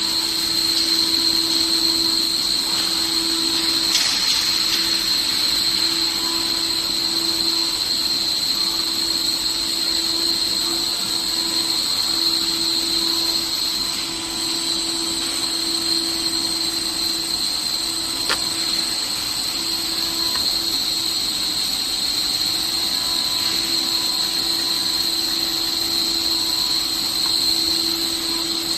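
CNC router spindle running steadily with a high, even whine while cutting aluminium composite panel, and a lower hum underneath that breaks off and returns every few seconds.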